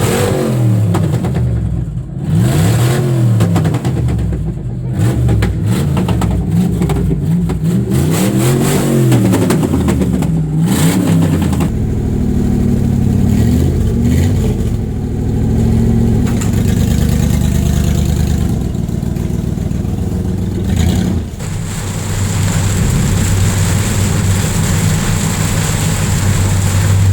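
Engine revved up and down several times, then running steadily for the second half, with a brief drop about twenty seconds in. It is the engine that has just been got running.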